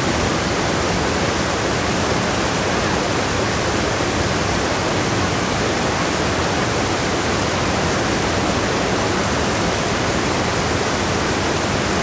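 Whitewater cascades of a river in high flow pouring through a narrow rock gorge: a loud, steady rushing of water with no let-up.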